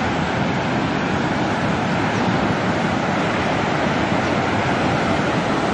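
Floodwater rushing and churning through a breach in an earthen embankment: a loud, steady wash of water with no break.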